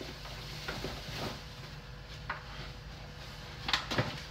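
Scattered soft knocks and taps from a bag of flour and containers being handled on a kitchen counter, with two sharper knocks close together near the end, over a faint steady hum.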